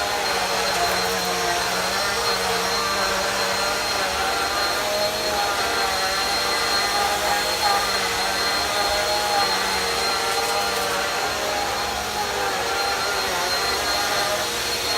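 Bissell Easy Vac vacuum cleaner running steadily: a continuous motor hum and airflow with a thin high whine, its lower pitches wavering a little.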